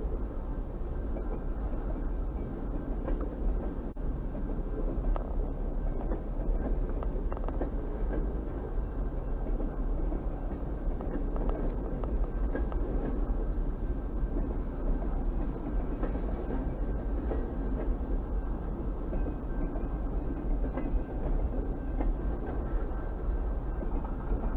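Pan Am Railways freight train of boxcars rolling past, a steady rumble of wheels on rail with a few faint clicks over a constant low hum.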